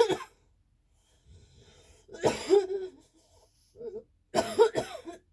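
A person coughing and clearing their throat in about four short, throaty bursts, the longest about two seconds in.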